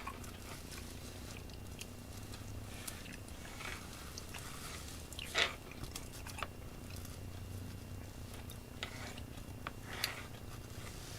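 Quiet handling of a cassette and splicing tape: scattered small clicks and crinkles, the loudest about five seconds in, over a low steady hum.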